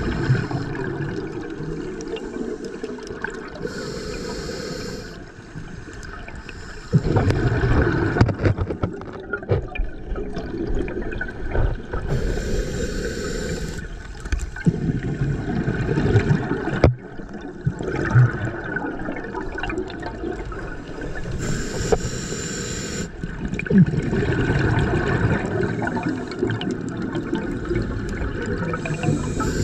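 Scuba diver breathing through a regulator underwater: a brief hiss on each inhale, then a longer rush of exhaled bubbles gurgling past, repeating about every eight or nine seconds.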